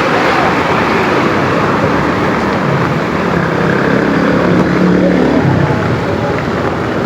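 Heavy floodwater rushing, with a motor vehicle's engine running through it; the engine's steady note stands out from about two and a half to five and a half seconds in.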